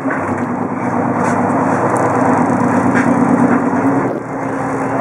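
Sportfishing boat's engine running with a steady low hum over a constant rush of water and wind noise, dipping briefly about four seconds in.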